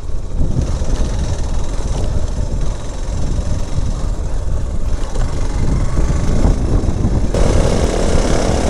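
Motorcycle running along a rough dirt road, with a steady low rumble.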